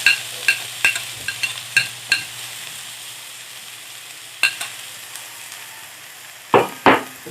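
Chopped onion and garlic sizzling in hot oil while a spatula stirs them in the pan. The spatula knocks against the pan in quick ringing clinks, about seven in the first two seconds and one more near the middle, then two heavier knocks near the end.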